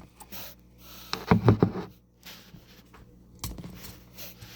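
A few clicks and knocks from hand-handling a Traxxas TRX4M RC crawler as its body is taken off. The loudest cluster comes about a second and a half in.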